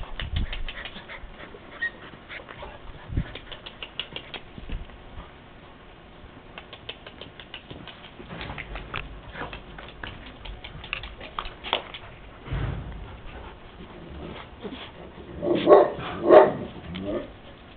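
Caucasian Shepherd puppies scuffling and pattering about on concrete, with scattered small clicks and scrapes, then a few short barks near the end.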